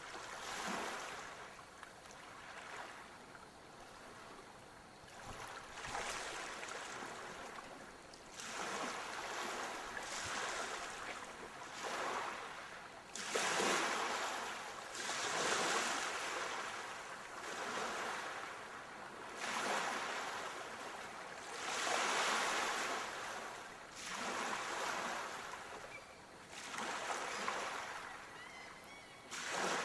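Sea waves breaking and washing ashore, the surf swelling and fading again and again, a couple of seconds apart.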